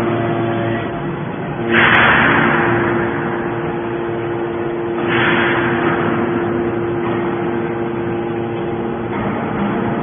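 Hydraulic scrap-metal baler running: a steady hum from its pump, with two loud rushing surges about two seconds and five seconds in, each fading over a second or so.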